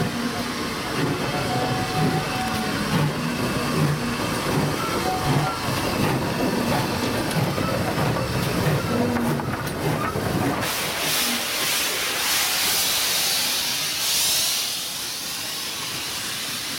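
GWR pannier tank steam locomotive and its coaches moving slowly past: engine and wheel noise, then a loud hiss of steam starting about two-thirds of the way through as the engine goes by, easing as the coaches roll past.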